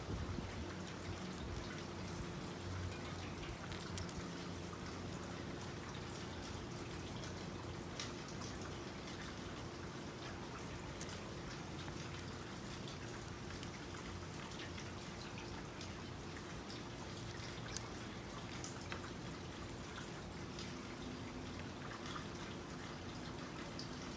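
Basket weaving: soft, steady handling noise with scattered light ticks and small drip-like sounds, over a steady low hum.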